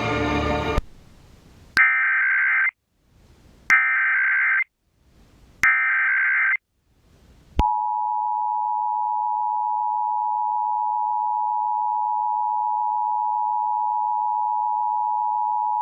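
Emergency Alert System header and attention signal: three bursts of the screeching digital data tones, each under a second and about two seconds apart, then the steady two-tone EAS attention signal (853 and 960 Hz) held for about eight seconds and cut off. In the first second, a short harsh sound from the previous broadcast ends.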